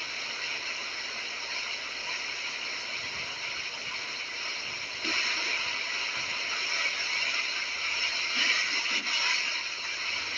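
Heavy rain falling steadily as an even hiss, growing louder about halfway through.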